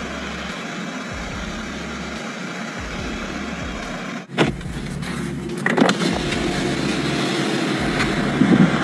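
A car driving on a snowy road: steady road and wind noise with a low rumble. A brief break about four seconds in is followed by a few short knocks.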